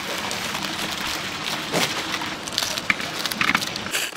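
Chicken deep-frying in hot oil in a large cauldron, a steady sizzle with crackling, with a few short knocks in the second half.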